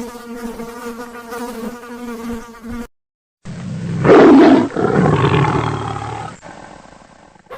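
A bee buzzing steadily for about three seconds, then after a short break a lion roaring, loudest just past the middle and tailing off.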